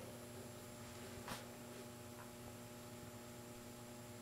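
Faint, steady electrical mains hum, with a single small click about a second in.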